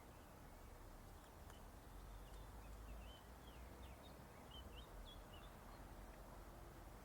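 Faint outdoor ambience: small birds chirping in a quick run of short, high calls for a few seconds in the middle, over a low steady background rumble.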